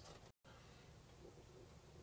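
Near silence: faint room tone, with a brief cut to total silence about a third of a second in.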